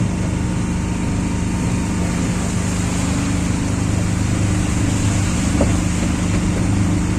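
A motor vehicle's engine running steadily, a constant low hum under a steady rush of noise.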